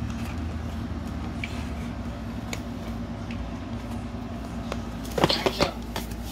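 Clear plastic parts-organizer case being handled: a few faint clicks, then a short plastic clatter about five seconds in, over a steady low hum.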